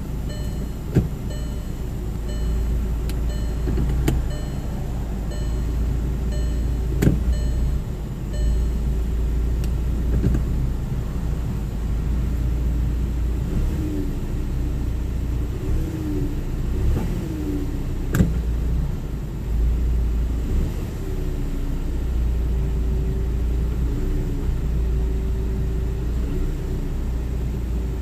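Volkswagen Tiguan idling with a steady low rumble, jolted by several sharp clunks as the transmission is shifted between park, reverse, neutral and drive. The hard shifts are taken by the owner for bad motor mounts. A repeating electronic beep sounds during the first eight seconds or so.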